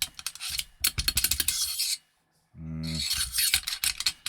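Metal airsoft rifle parts being handled: quick clicks and scraping as parts slide against each other, a short pause about two seconds in, a brief low hum, then more scraping.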